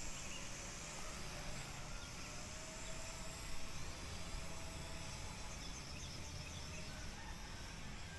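Faint outdoor ambience: a steady hiss of background noise with a few faint, short, high chirps scattered through it.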